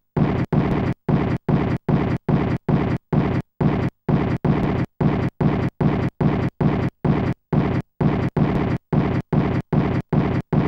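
Loud, low, rough noise chopped into short bursts about three times a second, each cut off sharply by a brief silence, like a stuttering gated loop in an electronic soundtrack.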